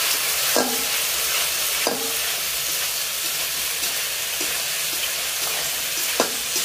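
Spice paste sizzling in hot oil in a metal wok while a spatula stirs and scrapes it. The spatula knocks sharply against the pan three times, once in the first second, once near two seconds and once near the end.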